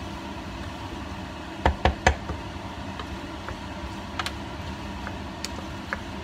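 Wooden spoon knocking against the side of a stainless steel pot while stirring spaghetti: three quick knocks about two seconds in, then a few lighter taps, over a steady background hum.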